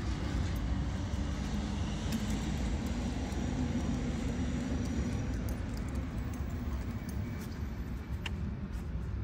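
Low, steady rumble of road traffic, a little stronger around the middle.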